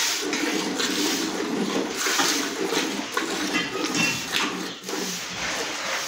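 Milk squirting in rhythmic streams into a metal pail as a cow is milked by hand.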